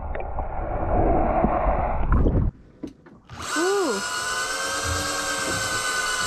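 Muffled underwater rushing for the first two seconds or so. Then, about three seconds in, an electric deep-drop fishing reel's motor starts up: its whine swoops in pitch, then settles into a steady high whine as it winds in line under load.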